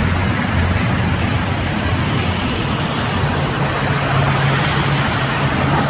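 A row of large sawmill band saws running, with wood fed through them: a steady low hum under a dense hiss of blades cutting. The hum steps up in pitch about four seconds in.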